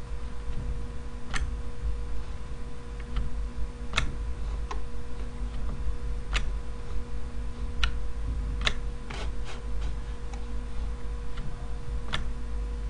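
Scattered single computer mouse clicks, about ten at uneven intervals, over a steady low electrical hum.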